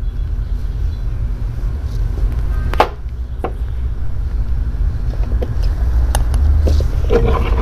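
Steady low rumble under a spoon scooping cake from a box, with two sharp clicks about three seconds in, then soft eating mouth sounds near the end.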